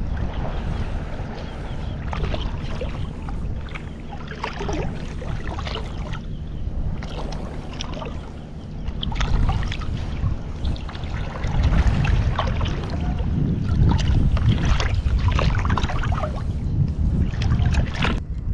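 Wind buffeting the action-camera microphone as a steady low rumble, with small waves slapping and sloshing in many short splashes.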